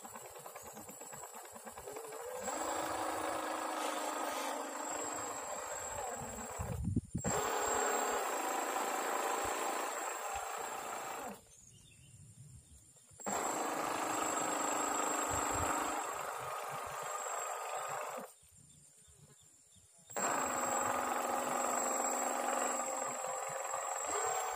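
Small electric motor of a homemade jerrycan toy boat whirring steadily as its propeller runs while the boat sits stuck in ditch grass. The motor grows louder about two seconds in, drops out for a moment around seven seconds, and cuts out twice for about two seconds each before starting again.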